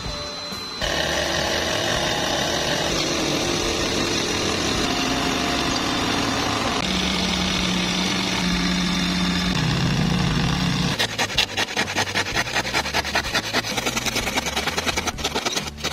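Cordless drill driving a reciprocating-saw attachment through plywood: a steady motor whine with blade rasp whose pitch shifts as it cuts. About two-thirds of the way through it gives way to a hand saw cutting plywood in quick, even back-and-forth strokes.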